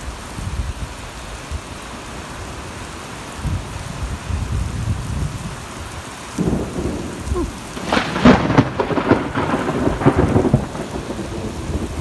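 Severe thunderstorm: steady rain with a low rumble, turning louder and rougher about halfway through and at its loudest a couple of seconds later.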